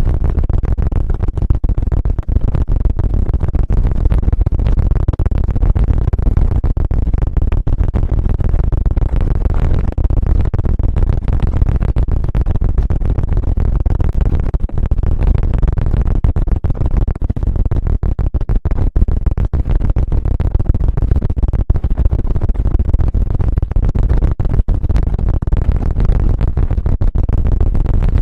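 Close-up ASMR 'helicopter' trigger on the microphone: a loud, dense low rumble with rapid crackles, kept up without a break.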